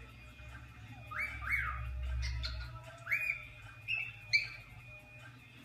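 Cockatiel giving short squawking calls that sweep upward in pitch, mostly in quick pairs, three bursts a second or so apart.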